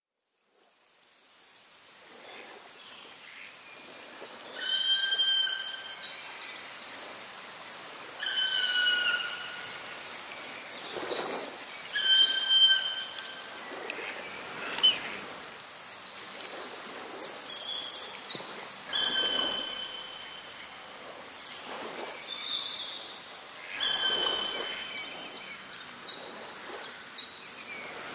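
Outdoor birdsong: several birds chirping and trilling together, with one repeating a clear, slightly falling whistled note every few seconds. It fades in over the first couple of seconds.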